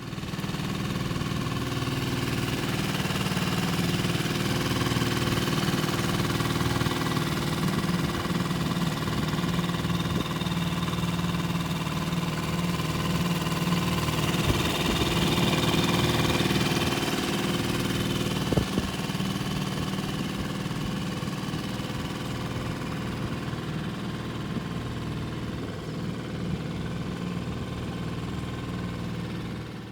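Tohatsu SailPro 6 HP four-stroke outboard motor running steadily under way, pushing a sailboat against wind and current.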